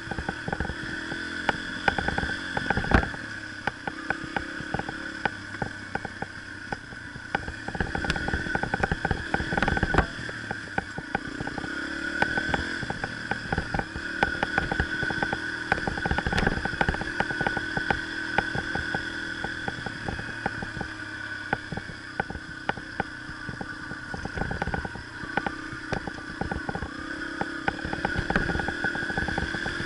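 Yamaha TT-R125 dirt bike's single-cylinder four-stroke engine running at a steady trail pace, with frequent clicks and rattles as the bike bounces over the rough dirt trail.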